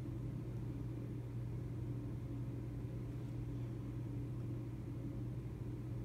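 Steady low background hum, with no calls or other events.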